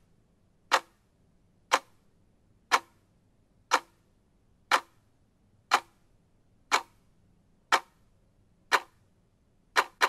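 Clock ticking, one sharp tick each second. Near the end the ticks quicken to about four a second.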